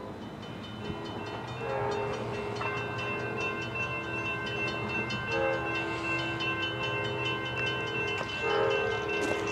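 Amtrak GE Genesis P42DC diesel locomotive approaching and sounding its multi-chime air horn in long held blasts, starting about a second and a half in, with brief breaks around five seconds in and again near the end, over the low rumble of the train.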